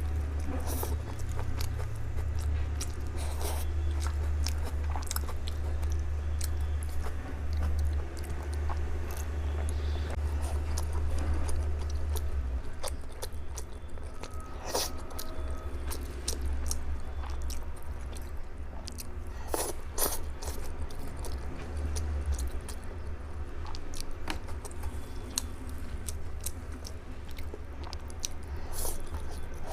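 Close-miked chewing and biting of kao lengmian (grilled cold noodles), with wet mouth clicks and smacks scattered throughout. A steady low hum lies underneath for the first twelve seconds or so, then fades.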